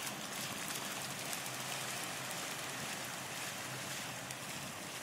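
Small waves washing gently onto a sandy shore, with wind, an even steady hiss.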